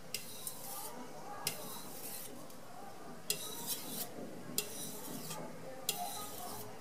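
Steel knife blade scraping across a wet Carborundum #8000 fine-grit water stone in five separate strokes, each about two-thirds of a second long with short pauses between them. These are counted finishing strokes on the fine stone, refining the edge and taking off the burr.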